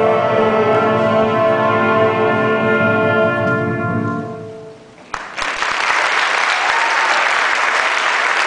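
Youth concert band holding a final sustained chord of brass and winds that fades away over the first five seconds. The audience then starts clapping about five seconds in and keeps applauding.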